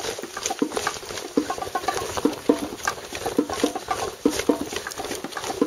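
Footsteps walking along a grassy heath path at a steady walking pace, about two to three steps a second.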